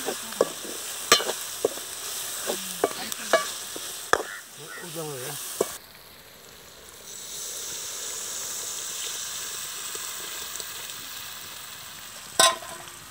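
Tempering of tomatoes, garlic and curry leaves sizzling in oil in an aluminium pan, with a metal ladle stirring and clicking against the pan many times. About six seconds in, the sizzle drops away suddenly as liquid goes into the pan. A steadier hiss follows, with one more sharp clack near the end.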